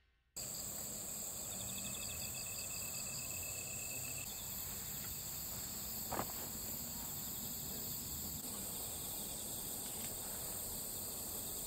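Insects chirping in a steady outdoor chorus of high continuous trills. A lower pulsing trill joins for a few seconds near the start, and there is one brief sound about halfway through.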